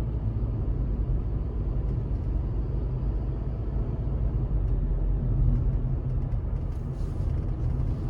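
Cabin sound of a fifth-generation Honda City CVT's four-cylinder engine and tyres while accelerating gently: a steady low hum and road rumble with no rattle in it.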